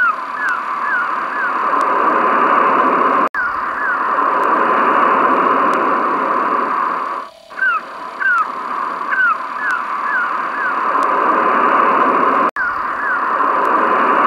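Seaside ambience: steady surf noise with runs of short, falling seagull cries. It is a looped sound effect that drops out for an instant and restarts about every nine seconds.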